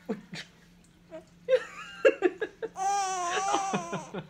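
A baby's excited vocalising: short laughing squeaks, then one long wavering squeal near the end. Two finger snaps come at the start.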